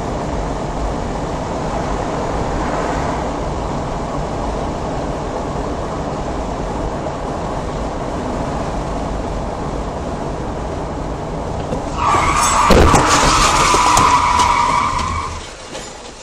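Steady road and engine noise of a car at highway speed. About twelve seconds in, tyres squeal loudly under hard emergency braking for about three seconds, with a sharp thump just after the squeal starts: the collision with a scooter.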